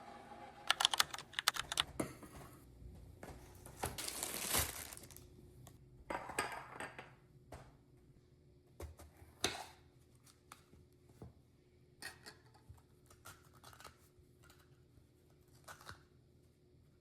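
Light handling noises: a quick run of clicks about a second in, a rustle around four seconds in and another soon after, then scattered soft taps.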